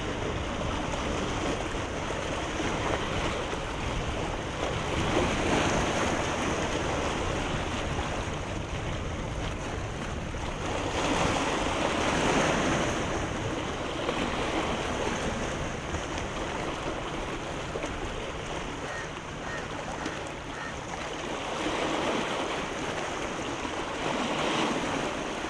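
Sea waves washing, swelling louder and ebbing every several seconds, with wind rumbling on the microphone.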